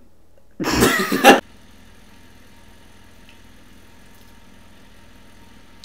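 A brief loud wordless vocal outburst from a person, under a second long, followed by a steady faint room hum.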